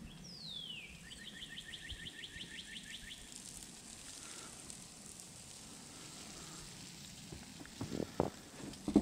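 A songbird singing: one whistle sliding down in pitch, then a fast run of about a dozen short repeated notes lasting about two seconds. Near the end come a few low knocks, the last one loud.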